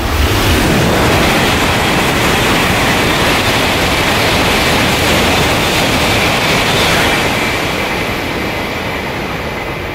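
E2 series Shinkansen passing through a station at high speed without stopping: a rush of air and running noise that hits all at once, stays loud for about seven seconds, then fades as the train draws away.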